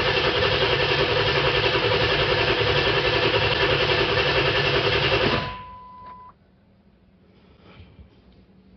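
Ford 7.3 Power Stroke diesel being cranked over by the starter without firing, building injection control pressure after its injectors were drained of oil; the cranking stops suddenly about five and a half seconds in, followed by a short steady tone.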